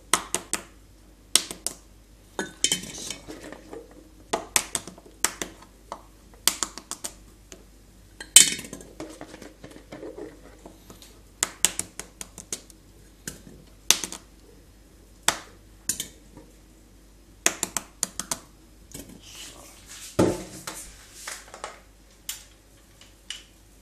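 Boiled quail eggs being set into a glass jar, their shells clicking and knocking against the glass and against each other in irregular sharp taps, a couple a second, with one duller knock near the end.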